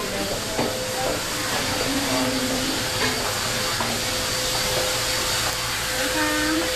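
Steady background hiss with a faint steady hum and scattered faint voices.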